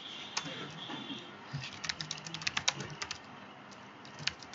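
Computer keyboard typing: a single keystroke, then a quick run of keystrokes in the middle, and one more keystroke near the end.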